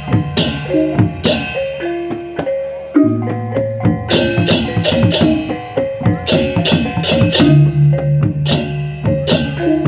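Balinese baleganjur gamelan playing: rapid interlocking clashes of cengceng kopyak hand cymbals ringing over kendang drums, with pitched gong figures and deep hanging-gong tones beneath.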